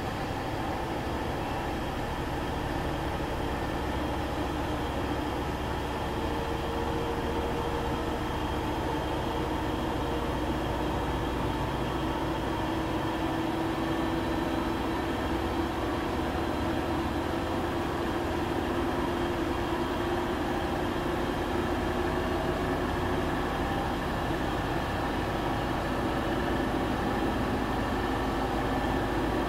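Washing machine running steadily: a continuous mechanical hum and whir with a faint droning tone that drifts slightly in pitch.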